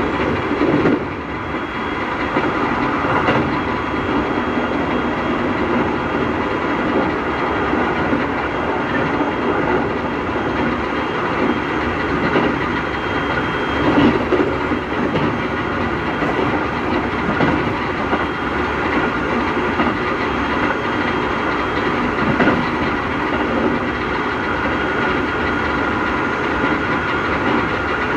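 Inside a Keikyu 1000-series electric train car running at speed: steady rolling noise with wheels clicking over rail joints, and a steady whine from the Mitsubishi IGBT-VVVF traction motors. This set is known for an abnormally loud motor noise, which the uploader believes comes from motors swapped in from another set.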